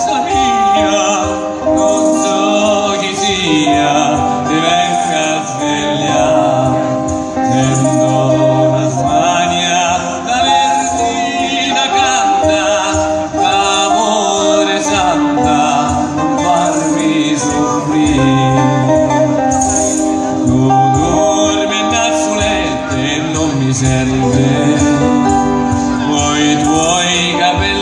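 Live folk band playing: a man sings over an accordion and a tuba, with steady low tuba notes under the melody.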